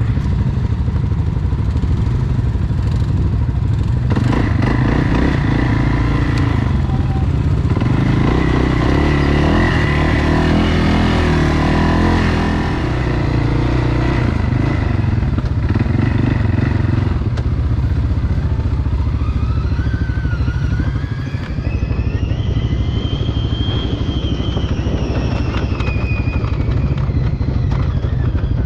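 ATV engine running steadily while riding a trail. In the last third a whine rises in pitch and then falls as the machine speeds up and slows again.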